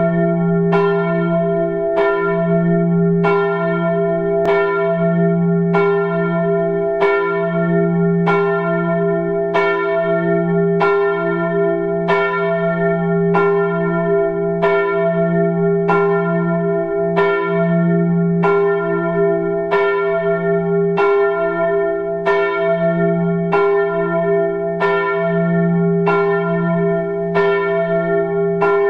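A large bell tolling steadily, one stroke about every 1.2 seconds. Each stroke rings on into the next over a sustained low hum.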